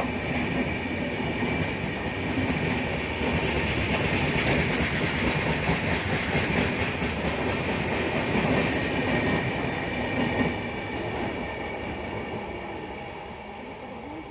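Passenger coaches of an express train rolling past, the wheels clattering on the rails, with a faint steady high whine. The noise fades over the last few seconds as the last coach goes by and moves away.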